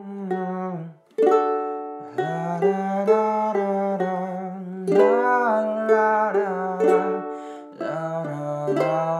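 Ukulele playing a song's intro, picked notes ringing over one another, with a short break about a second in.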